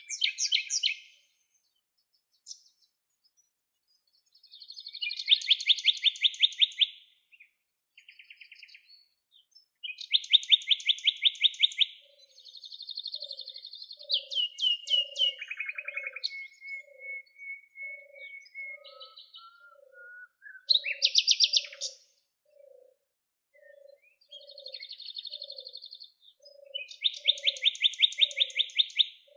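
Songbirds singing outdoors in repeated short, rapid trilled phrases, with a few whistled notes sliding in pitch between them. From about twelve seconds in, a faint low note repeats steadily beneath the song, more than once a second.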